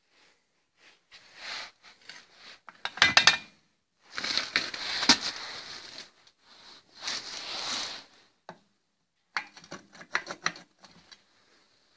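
Metal parts being handled on a concrete floor: scattered clinks, a quick clatter of knocks about three seconds in, and two stretches of scraping, then more light clinking near the end.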